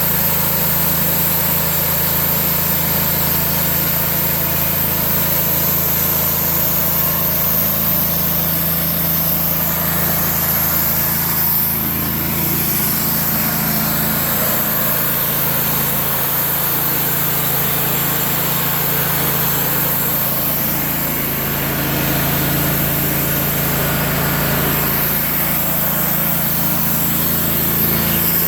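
Sawmill's engine running steadily, its note shifting slightly about twelve seconds in and again around twenty-one seconds.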